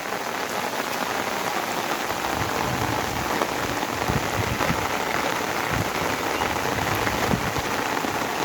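Steady rain falling, an even hiss of drops, with a few dull knocks partway through.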